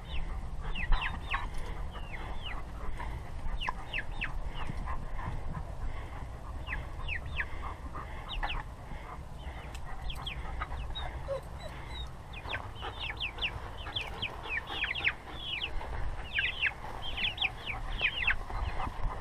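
Flock of young Rhode Island Red chicks peeping: many short, falling chirps that come thickest in the second half, over a steady low rumble.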